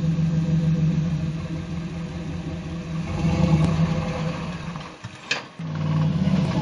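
Off-road rock crawler's engine running steadily while climbing a rock ledge, rising in level about three seconds in as it is given more throttle. Shortly before the end the sound drops away for a moment with a single sharp click, then the engine sound returns.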